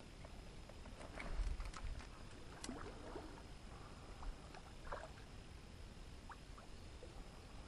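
Faint small splashes and swirls of water from a hooked carp fighting at the surface on a float rod, a few short splashes spread through, slightly louder about a second in.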